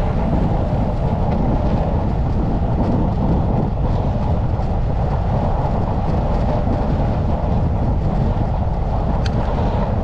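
Steady wind rushing over the microphone of a bicycle being ridden at speed, with two short clicks near the end.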